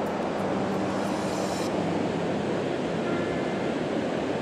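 Steady rush of a river flowing over a shallow stony bed, an even noise with no breaks.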